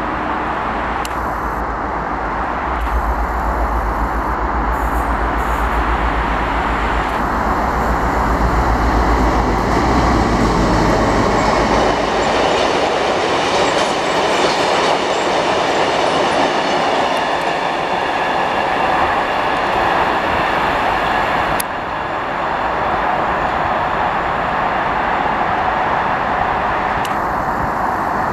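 Class 60 diesel freight locomotive passing with a deep, low engine rumble, then a long train of tank wagons rolling by with clickety-clack of wheels on the rails and some high ringing wheel noise. About three quarters of the way through the sound changes abruptly to a lighter, steady rail rumble.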